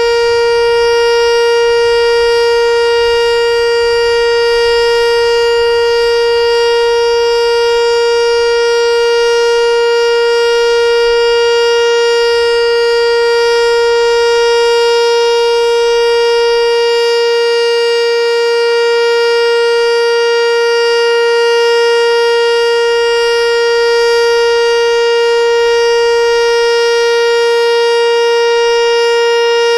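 ASC T-112 electronic outdoor warning siren sounding its Alert signal as the monthly test: one loud, steady, unbroken tone.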